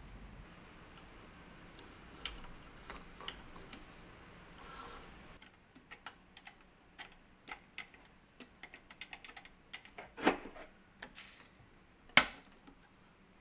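A run of light, irregular clicks and taps from small hard objects being handled, several a second in places, with two louder knocks near the end.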